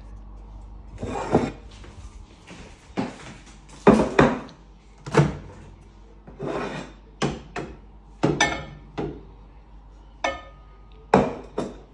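Kitchen handling noises: a dozen or so knocks, clunks and rubs as a plate of burgers is moved and a countertop microwave's door is opened and swung shut. A short beep about ten seconds in.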